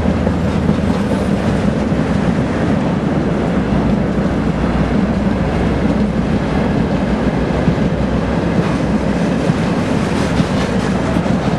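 An M62 diesel locomotive's two-stroke V12 engine runs steadily as it hauls wagons slowly past, over the rumble and clatter of wagon wheels on the rails.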